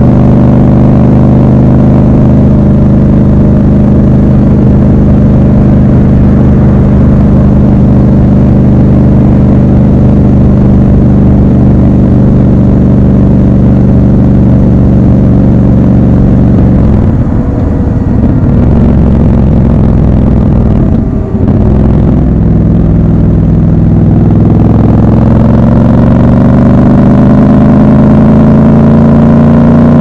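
Triumph Scrambler 1200 XC's 1200 cc parallel-twin engine running steadily at cruising speed. About seventeen seconds in the note breaks up, with a short dip near twenty-one seconds, then from about twenty-four seconds it climbs steadily in pitch as the bike accelerates.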